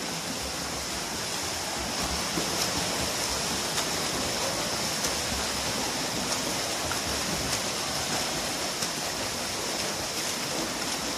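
Steady wash of splashing water as a swimmer sprints freestyle, arms and kick churning the surface, with other swimmers splashing in nearby lanes.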